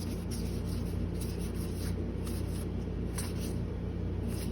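Trading cards being handled: a few soft slides and flicks of cards as a booster pack is flipped through, over a steady low hum.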